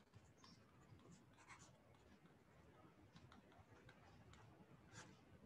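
Very faint taps and scratches of a stylus writing on a tablet, scattered irregular ticks with a slightly stronger one about five seconds in, over quiet room tone.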